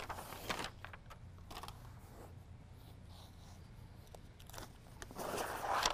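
Rustling and scraping of Mohawk Air.o carpet being pulled and folded back by hand, in two bursts: a short one at the start and a longer, louder one near the end.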